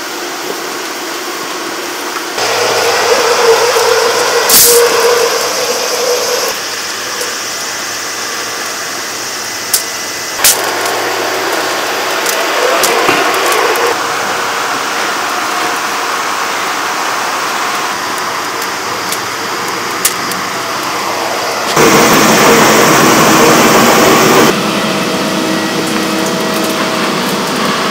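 Construction machinery engine running steadily, heard in several cut segments with sudden changes in level, with a few sharp knocks.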